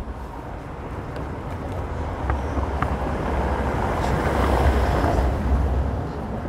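A motor vehicle passing on the street, its tyre and engine noise growing louder to a peak about four to five seconds in, then fading. Faint footsteps tick through it.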